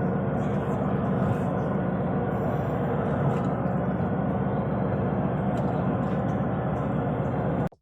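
Fishing boat's engine running steadily under a constant rush of noise, cutting off suddenly near the end.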